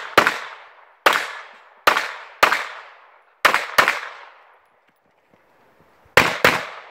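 Pistol shots from an IPSC practical-shooting competitor, each with a short echoing tail. Six shots come in the first four seconds, about a second apart, the last two as a quick pair. After a pause of about two seconds, another quick pair follows near the end.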